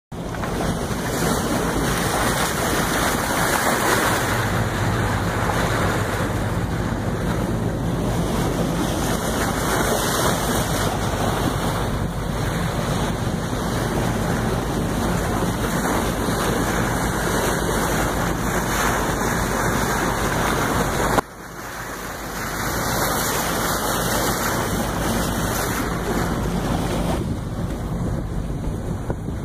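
Wind buffeting the microphone over water rushing along the hull of a boat under way, with a low, steady engine hum underneath.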